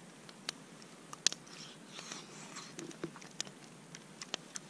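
A metal spoon and food being handled while eating: scattered sharp, light clicks with soft rustling in between.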